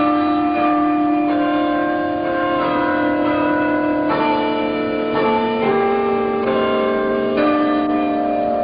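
Tower bells playing a slow tune, a new note struck about every second, each note ringing on under the next.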